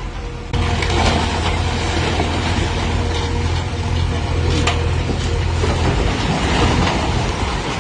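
Bulldozer's diesel engine running steadily with a deep drone that comes in about half a second in and eases near the end, with a sharp metallic knock a little past the middle.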